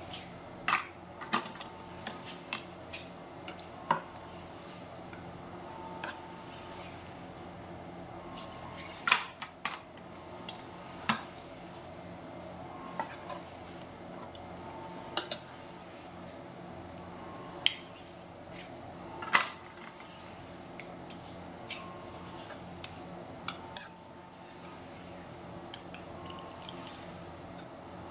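Metal serving spoon clinking and scraping against a cooking pot and aluminium foil trays as food is portioned out: sharp, irregular knocks and clinks every second or two, over a steady low hum.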